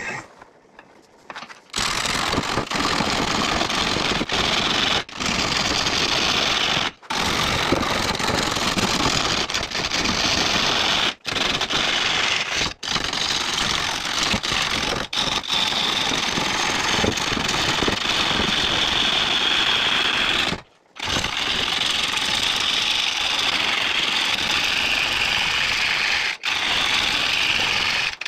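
Bowl gouge cutting the outside of a big blue pine bowl blank spinning on a wood lathe: a loud, steady cutting noise that starts about two seconds in. It breaks off briefly several times as the tool is lifted from the wood.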